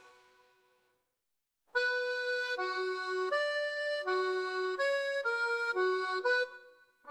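Instrumental outro of an AI-generated song. After a short silence, a solo free-reed instrument plays a slow melody of about eight held notes, then stops. A last note sounds just at the end.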